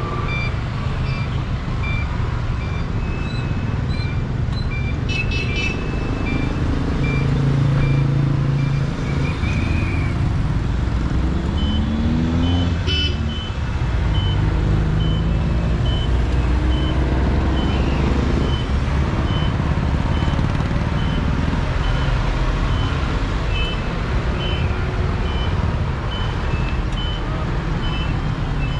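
Road traffic: vehicle engines running as cars move along the road, with short high electronic beeps repeating at an even pace, like a reversing alarm. An engine revs up about twelve seconds in.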